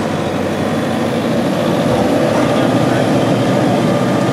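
2014 Toyota Hilux's engine running steadily at low revs under load as the 4WD crawls up a steep rutted track.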